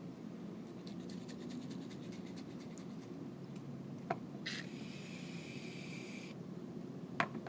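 Aerosol can of shaving foam spraying in one steady hiss of nearly two seconds, starting a little past halfway. Before it comes a run of light, rapid ticks as the can is handled.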